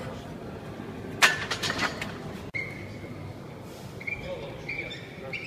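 Loaded barbell racked onto a monolift's hooks after a squat. It gives a loud metal clank about a second in, then the plates and bar rattle and ring for about a second.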